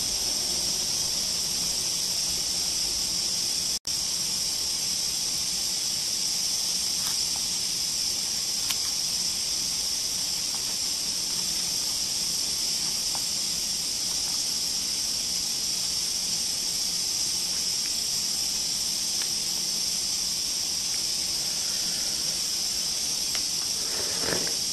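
Steady hiss of steam from a flameless cooker's heating pack reacting with water beneath the pot of ramen, with a brief dropout about four seconds in.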